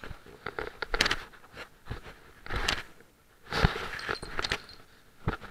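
Close rustling and scraping against the microphone in irregular bursts about a second apart, mixed with a few sharp knocks: handling noise from a camera being carried against clothing while someone moves about.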